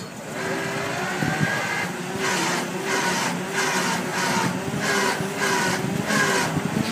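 A rhythmic mechanical squeak, each with a hiss, repeating about every half second from about two seconds in, over steady outdoor noise.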